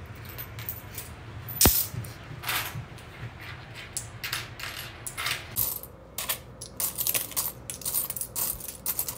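Small metal coins, Japanese yen among them, clinking and sliding against each other as hands pick through and sort loose piles of them. One sharp clink just under two seconds in; the clinking gets busier near the end.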